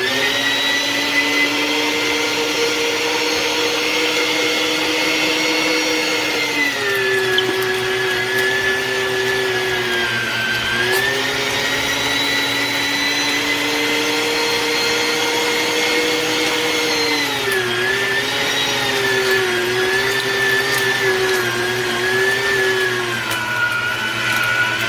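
Ollygrin electric meat grinder's motor running with a steady whine. Its pitch sags three times and runs lower near the end.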